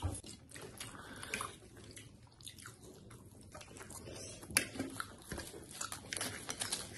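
Eating sounds of people biting and chewing fried noodles and raw cabbage leaves: irregular wet chews and crisp crunches, with short sharp clicks scattered through, the loudest about four and a half seconds in.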